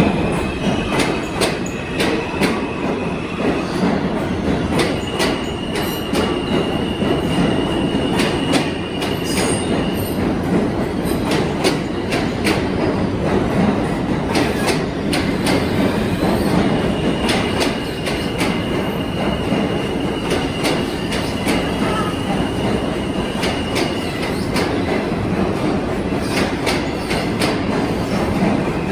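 New York City subway train running on the rails: a steady heavy rumble with frequent sharp clicks of the wheels over rail joints, and a high-pitched wheel squeal that comes and goes for several seconds at a time.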